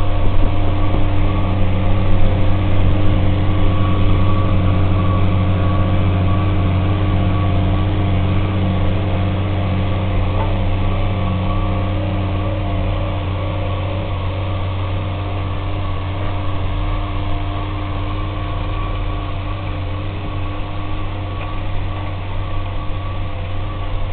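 Case MXU tractor engine running steadily under load as it pulls a slurry tanker and injector cultivator across the field, heard from a car driving alongside. A deep steady drone with a few steady engine tones above it, slowly getting quieter.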